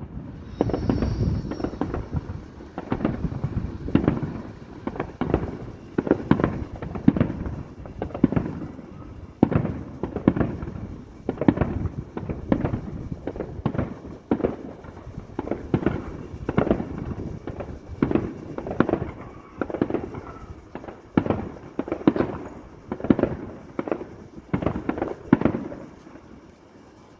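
Fireworks display: shells bursting in a continuous barrage, about two bangs a second with echoing tails, thinning out near the end.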